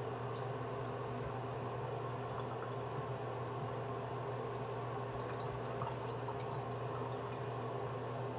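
Steady low mechanical hum in a small room, with a few faint light clicks and taps of small things being handled on a counter.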